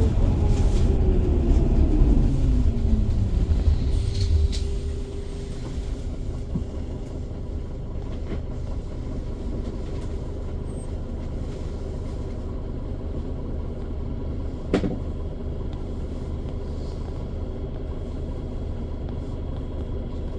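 A motor vehicle going by, its engine note falling over the first few seconds as it fades. A steady low rumble follows, with a single sharp knock about fifteen seconds in.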